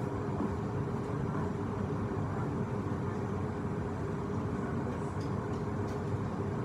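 Steady low rumble with a faint even hum.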